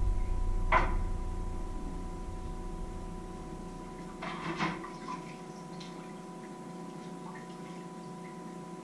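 Kitchen clatter: one sharp clink a little under a second in and a short burst of clatter about four and a half seconds in, over a steady electrical hum with a faint high whine. A low rumble fades away over the first few seconds.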